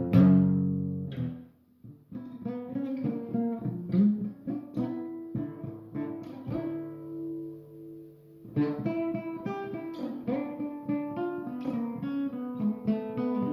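Guitar being played: a loud strummed chord rings out at the start and dies away, then single plucked notes and short phrases follow. A low note is held for about two seconds past the middle, and after it the playing gets busier.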